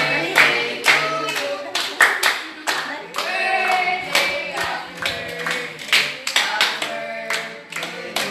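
A group of young people singing a birthday song together while clapping along in time, a few claps a second.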